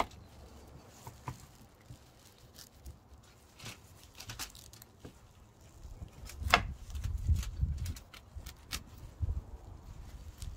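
Kitchen knife cutting through beetroot stalks and knocking on a wooden chopping board: scattered sharp clicks and taps, the loudest about six and a half seconds in, with a low rumble from about six seconds on.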